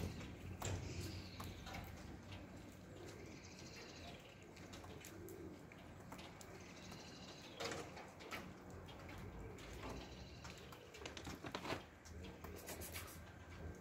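Faint outdoor birdsong: high gliding calls, and low cooing calls of the kind pigeons or doves make. A few soft clicks come about two-thirds of the way through and again near the end.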